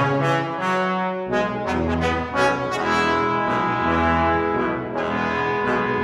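A brass quartet of three trombones and a tuba playing a piece together in sustained, overlapping notes. The tuba's low notes drop out for about the first second, then come back in long held notes under the trombones.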